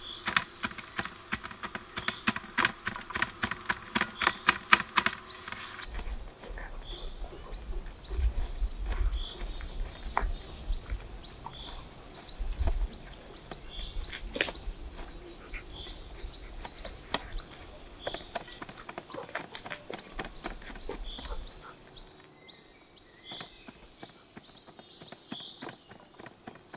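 A large knife chopping herbs and carrots on a metal tray in quick, even strokes for the first six seconds or so, then small birds chirping over and over, with a low rumble under them for much of the rest.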